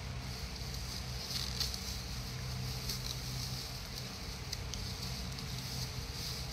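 Thin clear plastic wrap crinkling and crackling softly as small hands pick at and unfold it, over a steady low hum.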